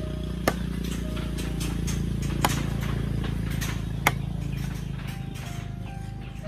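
Cleaver chopping raw meat on a wooden stump chopping block: three sharp chops, about half a second, two and a half seconds and four seconds in, with lighter chopping taps between them.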